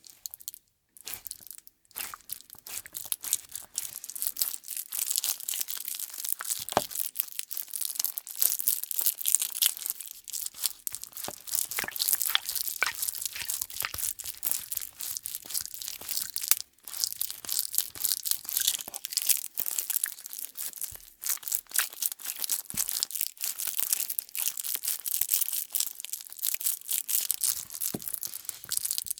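Sticky nano tape crackling and peeling as it is worked by hand: a dense run of fine, sharp sticky crackles with brief pauses near the start and about halfway through.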